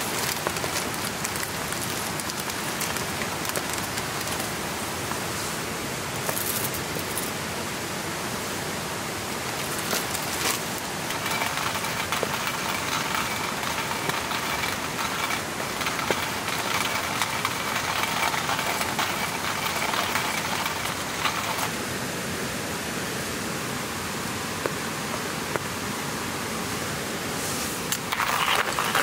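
Steady rain falling, with scattered drops pattering. For about ten seconds in the middle a slightly brighter hiss sits over it.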